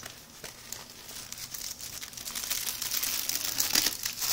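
Plastic packaging crinkling as it is handled, growing louder over the second half.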